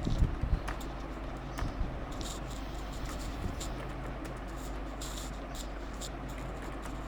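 Computer keyboard typing: scattered taps and clicks, bunched in the first second or so, over a steady low electrical hum.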